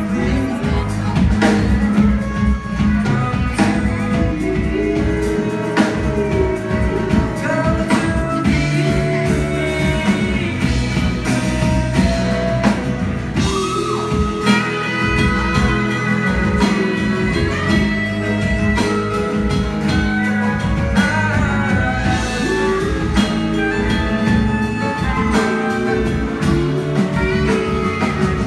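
Live rock band playing a song in a club: drum kit, bass and guitars keep a steady groove under a lead melody on top.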